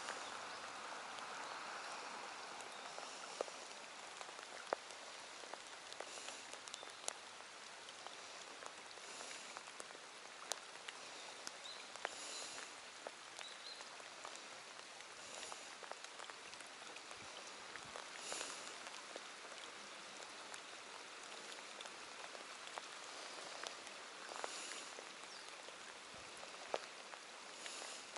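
Steady rain falling on a lake's surface, with scattered sharp ticks of close drops throughout.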